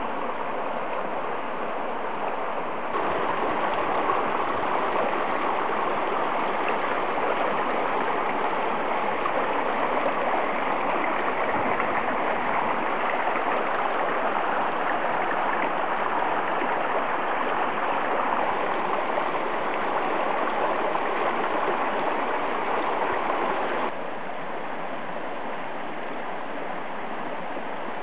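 Shallow mountain stream running over rocks: a steady rush and burble of water. It gets louder about three seconds in and drops back a few seconds before the end.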